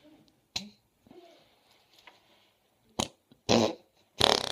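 Slime being squeezed and pressed: a couple of short wet pops, then longer squelching, fart-like noises as trapped air is forced out of it. The longest comes near the end.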